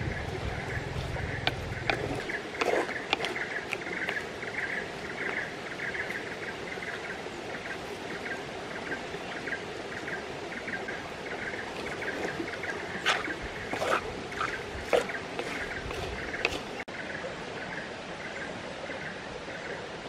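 Shallow rocky stream running steadily, with scattered light clicks and knocks from a spoon stirring in a cooking pot.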